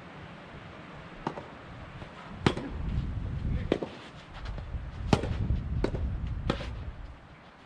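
Soft tennis balls being struck by rackets: about six sharp pops at uneven intervals of roughly a second. Strong wind buffets the microphone with a low rumble that grows louder through the middle.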